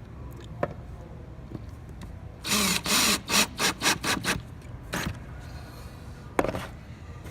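Power drill-driver fastening a wire clip: one longer run, then several short bursts on the trigger, followed by two sharp clicks.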